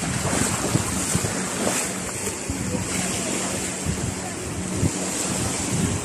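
Small sea waves washing onto a sandy beach in a steady wash, with wind gusting on the microphone and faint voices of beachgoers in the background.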